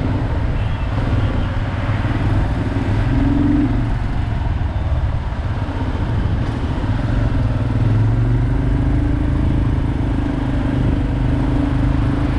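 Royal Enfield Himalayan's 411cc single-cylinder engine running at low road speed, its note shifting slightly with the throttle, over steady road and wind noise.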